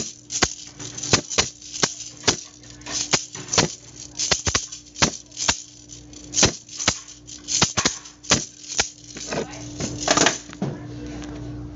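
A child playing a plastic toy drum and maraca: sharp, irregular strokes, about two or three a second, that stop about ten and a half seconds in. A steady hum runs underneath.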